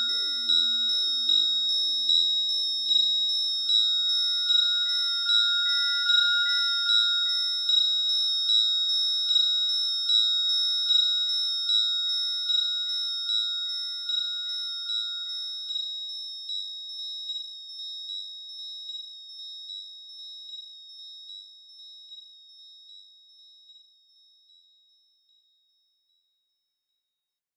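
Electronic music of high, pure beeping tones pulsing about every three-quarters of a second, with a low pulsing figure underneath that drops away early. The whole fades slowly to silence a couple of seconds before the end.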